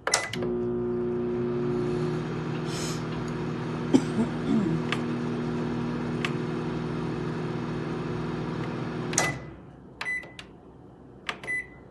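Galanz retro microwave oven beeping as it is started, then running with a steady hum for about nine seconds, with a few clicks partway through. It stops suddenly with another beep, and two more short beeps follow near the end.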